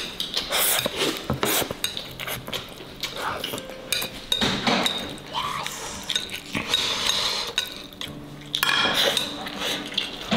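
Chopsticks and utensils clinking and scraping against ceramic plates during a meal, in irregular light taps.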